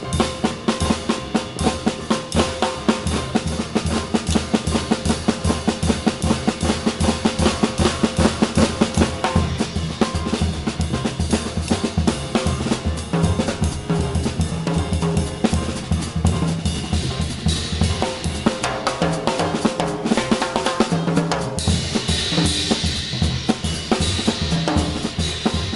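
Drum kit solo played with sticks: fast, dense strokes on the DMJ snare, toms and bass drum. In the last few seconds the Murat Diril cymbals wash in loudly over the drums.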